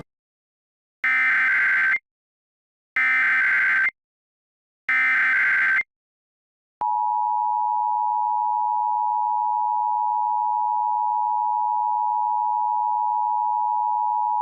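Emergency Alert System tones: three one-second SAME header data bursts, about a second apart, encoding the alert. About seven seconds in, the steady two-tone EAS attention signal starts, announcing the voice message to come.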